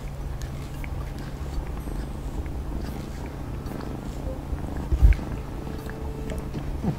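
A domestic cat purring steadily, with one low thump about five seconds in.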